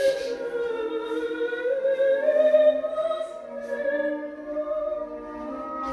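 Opera singing: a classical vocal line holding long, slowly gliding notes over a softer accompaniment.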